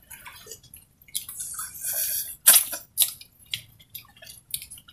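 Shellfish being eaten by hand: wet slurping and sucking at the shells, with a few sharp clicks of shell.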